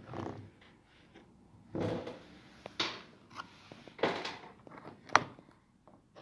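Handling sounds of a foldable desk phone holder with a phone resting on it: a few short scrapes and knocks as it is moved and tilted on the desk, and one sharp click about five seconds in, the loudest.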